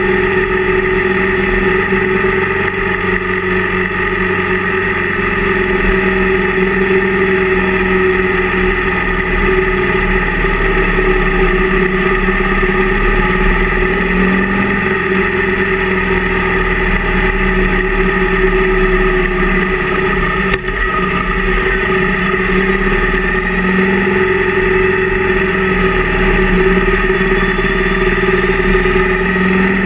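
Motorcycle engine running at a steady cruising speed, heard on board the moving bike, its pitch holding nearly level throughout.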